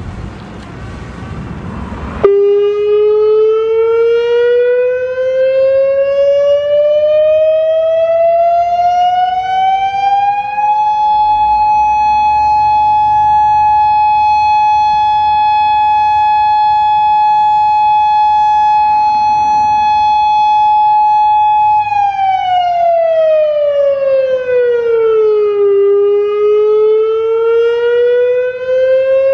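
Federal Signal Modulator 6048 electronic warning siren sounding on test, starting suddenly about two seconds in after a brief noisy rumble. Its tone rises slowly, holds steady for about ten seconds, falls, then begins to rise again.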